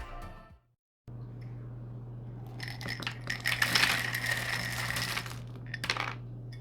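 Typing on a NextTime 75 gasket-mount mechanical keyboard with lubed MOMOKA Frog switches: a rapid flurry of keystroke clicks, then a shorter burst near the end, over a steady low hum.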